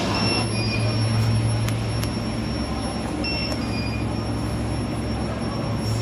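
Induction melting furnace running: a steady low hum with a thin high-pitched whine over it. A short falling two-note beep sounds twice, just after the start and about three seconds in.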